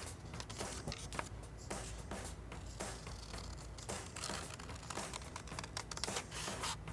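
Scissors cutting through a paper plate, a run of irregular snips with paper rustling and crinkling.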